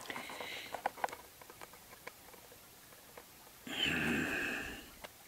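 A few small clicks and taps as a wooden stamp is handled and pressed onto paper, then, about four seconds in, a loud breath out lasting about a second.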